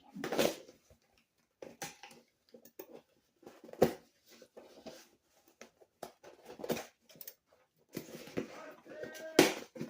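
A cardboard parcel being handled and opened by hand: irregular rustles, scrapes and knocks. The sharpest knock comes about four seconds in and a loud rustle near the end.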